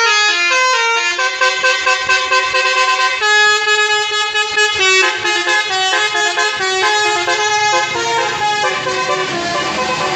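Indonesian tour bus's "telolet" multi-tone air horn playing a melody: a run of stepped horn notes, often several sounding together as chords.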